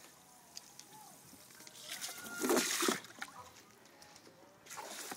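Garden water spray splashing, with a loud burst of splashing about two and a half seconds in and a shorter one near the end.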